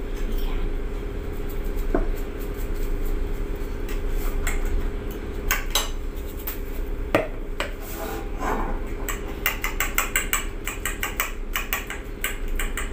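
Metal fork clinking against a ceramic bowl while mixing beaten egg with seasoning: a few scattered taps at first, then a quick run of several clinks a second in the second half. A steady low hum runs underneath.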